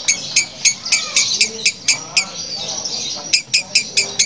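Female lovebird giving a harsh, rapid, rhythmic cackling chatter of about five short pulses a second, an unusual rough call likened to a running diesel engine.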